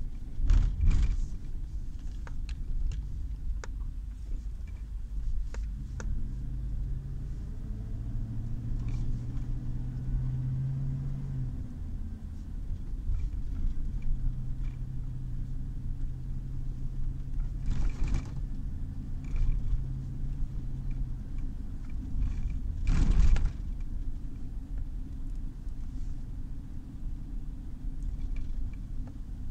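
Car driving at moderate speed, heard inside the cabin: a steady low rumble of engine and tyres, with an engine hum that rises and falls through the middle. Occasional light knocks and two louder thumps, the loudest about three-quarters of the way through.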